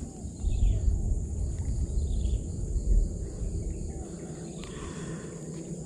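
Steady high-pitched insect buzzing, with a low rumble on the microphone for the first four seconds or so that then eases off.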